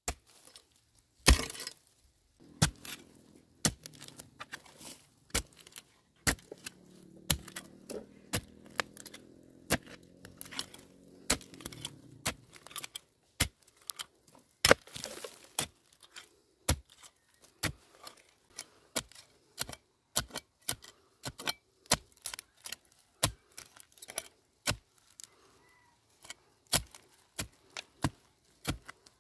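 Repeated sharp chopping strokes of a blade, about one to two a second, some harder than others.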